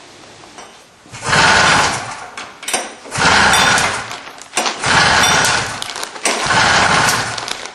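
Air-cooled 1985 Polaris 440cc two-stroke snowmobile engine firing up, running loudly in four surges of about a second and a half each with short dips between, as it catches and is blipped during starting.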